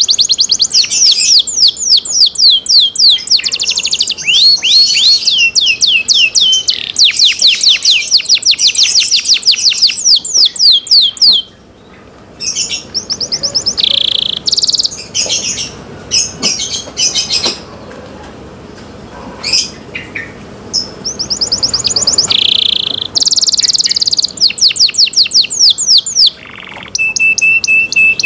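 Domestic canary singing: long runs of fast trills made of rapidly repeated down-slurred notes. In the middle the song breaks into short phrases with gaps, then the trills pick up again, and it ends on a steady held note.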